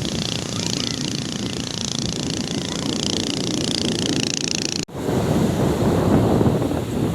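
Outdoor nature ambience of rushing water and wind: a steady hiss strongest in the upper range, then a sudden cut about five seconds in to a deeper, fuller rush like surf.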